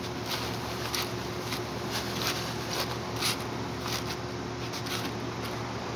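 Aluminium foil packets crinkling in irregular little crackles as a hand presses and handles them on a kettle grill grate, over a steady background hum.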